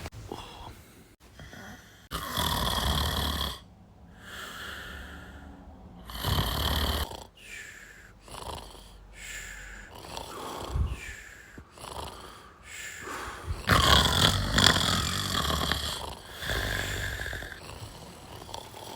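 A man snoring very loudly and unevenly: long rasping snores a few seconds apart, the loudest about two seconds in, about six seconds in and near the end, with shorter, quieter snorts and breaths between them.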